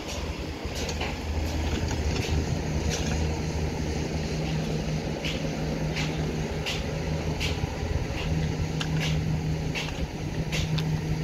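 Construction site sound: a steady low drone of running diesel machinery, with scattered short metallic clinks as workers handle steel rebar.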